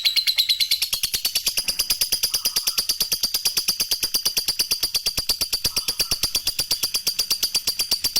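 Lovebird singing a long 'ngekek' chatter: a fast, even run of sharp, high notes at about ten a second, kept up without a break.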